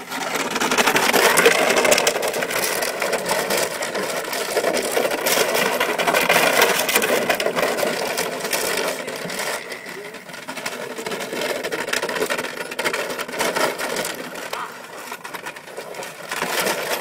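Empty plastic water bottles crinkling and clattering as a puppy clambers through a trough full of them: a dense, continuous crackle that is busiest in the first half and thins out later.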